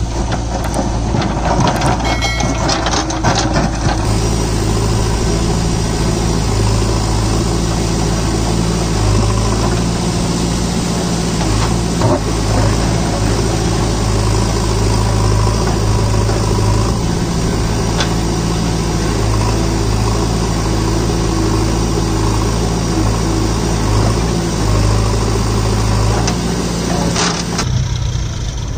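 JCB 3DX backhoe loader's diesel engine running steadily, its note stepping up and down every few seconds as the backhoe digs, with a few sharp knocks of the bucket on stones.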